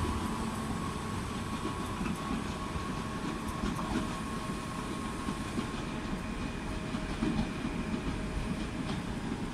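Passenger train running slowly out of the station: a steady rumble of wheels on rails with a faint high whine over it.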